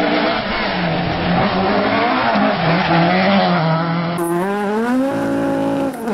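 Mk2 Ford Escort rally car's engine running at high revs as the car passes at speed, the note dropping and rising with lifts and gear changes. About four seconds in, a second pass begins, its engine note climbing steeply under hard acceleration and then holding high.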